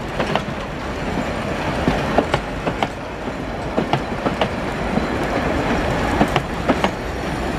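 Metre-gauge heritage railway passenger carriages rolling slowly past close by: a steady rumble of the wheels on the track with irregular clicks several times a second as the wheels pass over rail joints.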